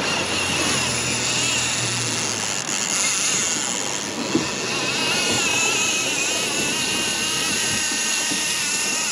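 Steady rush of wind and water wash past a moving boat at sea. A thin, wavering high whine runs through it and grows clearer over the last few seconds.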